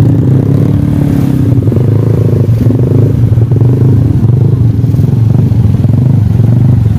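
A small engine running steadily and close, a loud low hum with a stack of overtones above it.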